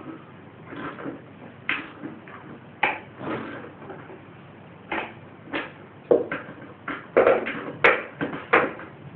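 Irregular knocks and clatters from hand tools and metal parts being handled while a lawn mower is taken apart, about a dozen sharp strikes, coming thicker in the last few seconds.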